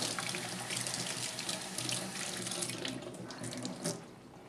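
Kitchen tap running into a stainless steel sink while a foam filter sponge is rinsed and squeezed under the stream. The water stops between three and four seconds in, with a short sharp knock just before the end.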